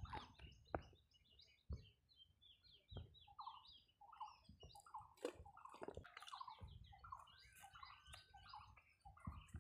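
Faint small-bird chirping, many short repeated calls, with a few soft knocks in between.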